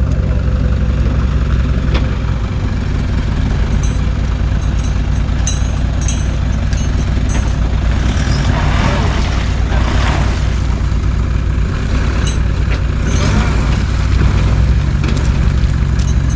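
Four-wheel-drive vehicle engine running steadily with a deep drone, with louder rushing surges about halfway through and again a few seconds later.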